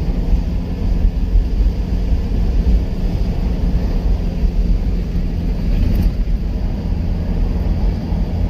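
A car driving along a road: steady engine and road rumble.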